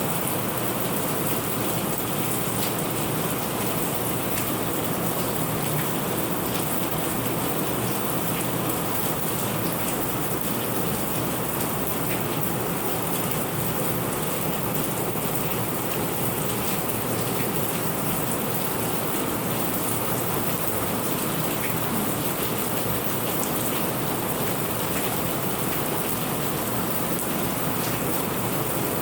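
Steady rain falling hard, a dense even hiss dotted with the ticks of individual drops.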